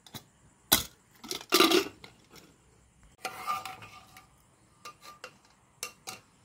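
Metal clinks, knocks and scrapes from an aluminium pressure cooker as its weight and lid are handled and a metal ladle is dipped into the boiled chana dal: a sharp knock about a second in, a scraping clatter with a faint ringing a few seconds in, then a few light clicks.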